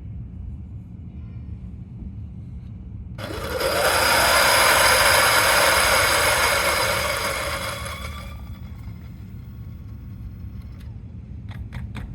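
Turin DF83V 83 mm flat-burr coffee grinder, running at 700 RPM, grinding an 8 g dose of light-roast beans. The grinding starts about three seconds in and runs loud for about four seconds. It then fades as the beans run out, and the motor whine carries on for a few more seconds before stopping. A few quick clicks come near the end.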